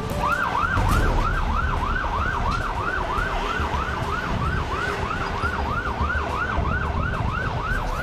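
Police vehicle siren in a fast yelp, its pitch sweeping up and down about three times a second, over low street rumble.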